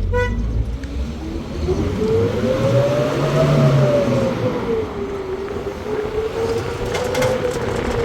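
An engine running under load, its pitch rising steadily for about three seconds, dropping back, then holding fairly steady. A short pitched tone sounds right at the start.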